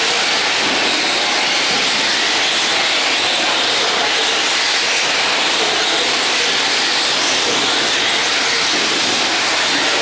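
Several radio-controlled trucks racing on an indoor dirt track, their motors and tyres blending into a steady, dense hiss with no single car standing out.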